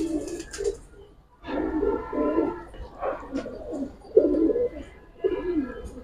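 Domestic pigeons cooing: low, repeated coos following one another about once a second, with more than one bird calling.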